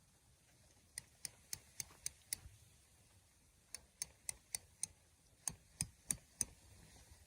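Three quick runs of sharp knocks, about four a second; the last run is heavier, with a dull thud under each knock.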